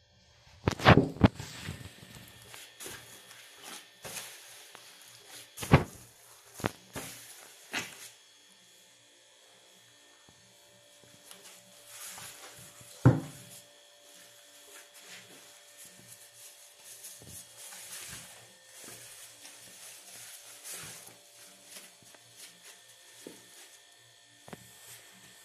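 Gloved hands kneading soft dough in a bowl: quiet rubbing and squishing, broken by a few sharp knocks, the loudest about a second in and again about thirteen seconds in. A faint steady hum runs underneath.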